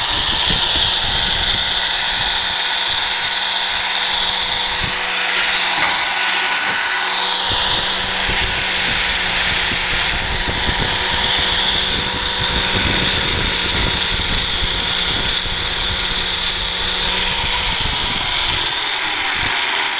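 Drill Master 4½-inch angle grinder running with a 120-grit flap disc pressed against the curved steel of a fire extinguisher tank, sanding off old paint: a steady motor whine over the grinding rasp, with the whine sagging a little lower near the end. The grinder's spindle bearing is going out, by the owner's account.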